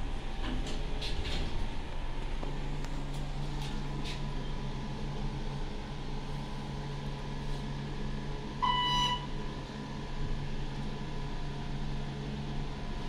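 Thyssenkrupp hydraulic elevator: a few clicks as the car's doors finish shutting, then the hydraulic pump motor starts about two and a half seconds in and runs with a steady low hum as the glass car rises. A single electronic chime sounds briefly near nine seconds in, the loudest sound.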